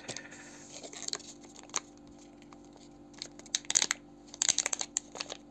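Clear plastic packaging bag crinkling as it is handled, in scattered crackles that come thickest in the second half.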